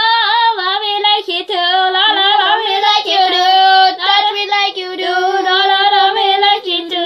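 A young girl singing a high melody in long, held notes, with little pause between them.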